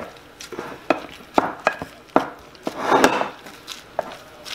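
Spatula pressing soaked bread slices down into a baking dish: several light, irregular knocks of the spatula against the dish, with a short scraping rush about three seconds in.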